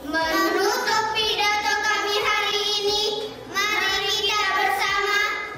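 Boys singing together in long held notes, in two phrases with a short break about three and a half seconds in.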